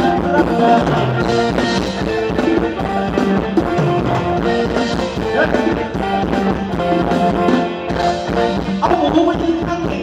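Live band playing upbeat Thai ramwong dance music with a steady beat.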